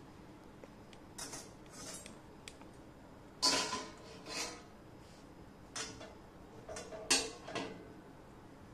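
Stainless-steel thali plates and tongs clinking, knocking and scraping as steamed dhokla plates are taken out and set down on a counter: a series of separate metallic knocks, some ringing briefly, the loudest about three and a half seconds in and again about seven seconds in.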